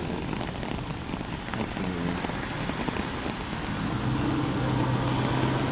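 Steady rain pattering, with a low steady hum, like an engine, joining about four seconds in.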